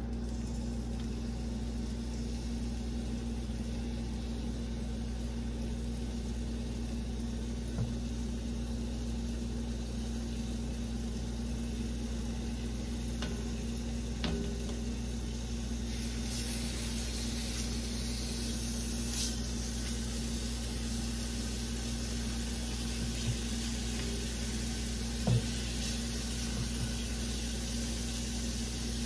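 Pieces of raw marinated chicken sizzling in hot olive oil in a pot on the stove, the sizzle growing stronger about halfway in. A steady low hum runs under it, with a few light knocks, the loudest near the end.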